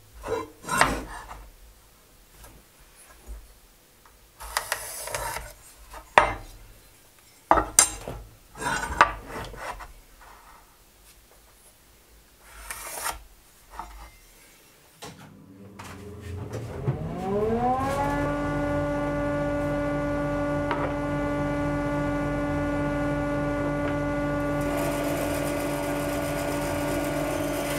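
A steel square and pencil are set down and slid across a glued-up apple-and-walnut cutting-board blank, giving scattered knocks, scrapes and rubs. About sixteen seconds in, a bandsaw's motor starts with a whine rising over about two seconds, then runs steadily.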